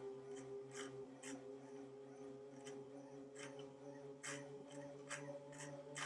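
Tacx NEO Bike Smart indoor smart bike being pedalled under load: a faint, steady hum made of several tones, strengthening a little about four and a half seconds in as the power rises, with sharp ticks about twice a second.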